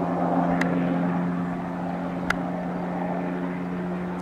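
Helicopter flying overhead, a steady drone as it circles. Two small clicks, about half a second in and again near the middle.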